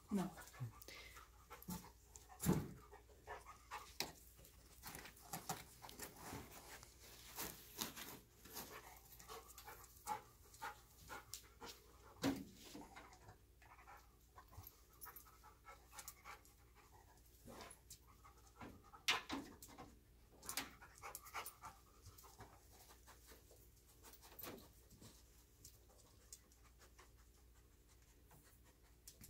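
A scent-detection dog panting and sniffing as it searches, with faint scattered clicks and scuffs.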